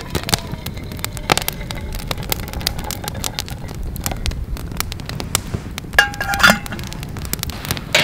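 Campfire crackling with many sharp pops while hot water pours from a hanging kettle into a steel coffee pot, with a faint ringing tone near the start. A short metallic clink about six seconds in.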